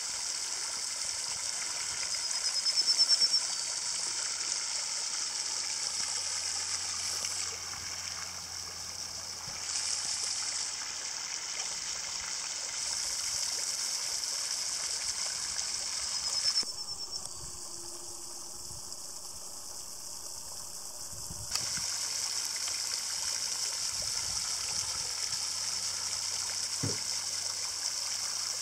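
Radio-controlled model boat's electric motor and propeller running, a steady high hiss with a faint whine. It eases off abruptly for several seconds past the middle, then picks up again.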